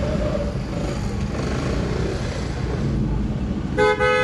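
Steady low rumble of jammed city traffic at an intersection. Near the end a car horn, from a taxi, starts a long honk.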